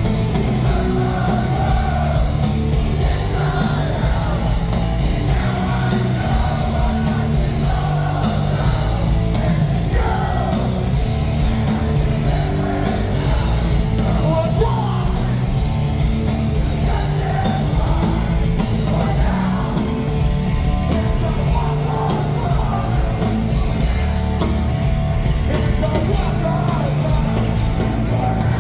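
Hardcore punk band playing live at loud, steady volume, with shouted and sung vocals over a full rock band.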